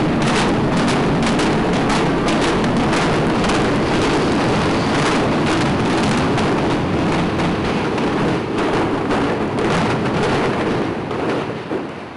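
Implosion demolition of a concrete tower block: a rapid series of sharp bangs from the explosive charges over the heavy rumble of the building collapsing. The bangs thin out after about six seconds and the rumble fades near the end.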